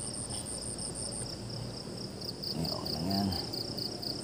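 Insects chirping in a steady rhythm of about four pulses a second, high-pitched, over a steady low background rush. A brief murmur of a man's voice comes about three seconds in.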